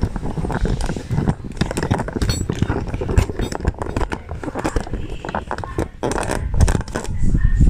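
Metal knocks, clanks and scraping as a tight rear brake drum on a 2015 Toyota Wigo is worked loose and pulled off its hub.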